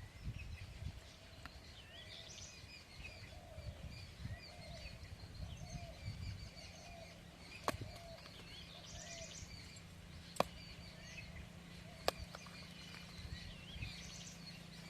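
Small birds chirping in repeated bursts, with a lower call repeating beneath them over a low rumble. Three sharp clicks fall in the second half.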